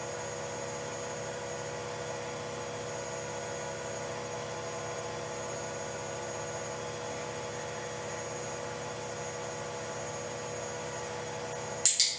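A steady, unchanging hum with several held tones over a hiss. Near the end come two short sharp clicks.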